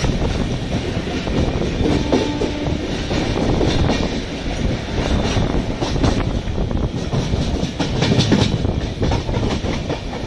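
Track sound of an LHB passenger coach running at speed, heard from the open door: a steady wheel-on-rail rumble and wind, broken by sharp clacks over rail joints and points several times.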